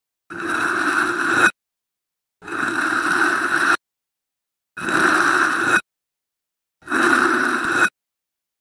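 A blade slicing through a soft, marbled block, heard as four scraping cuts about a second long each. Each grows a little louder and stops sharply, with silence between them.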